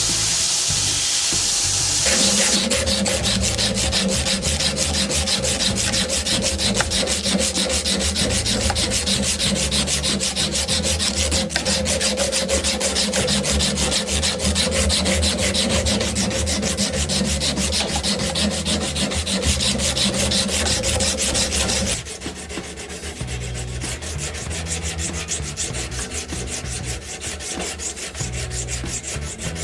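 Knife being sanded, a continuous rough rubbing that turns quieter about three quarters of the way through.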